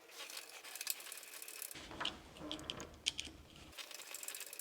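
Screw being driven in by hand with a screwdriver while fitting a smart door lock: faint, irregular small clicks and metal scrapes.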